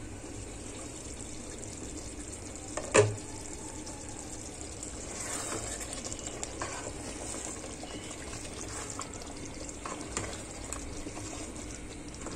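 Chicken pieces in a thick masala gravy sizzling and bubbling in a nonstick pot as they are braised down on medium heat and stirred with a wooden spatula, with small scrapes and clicks from the stirring. A single sharp knock about three seconds in is the loudest sound.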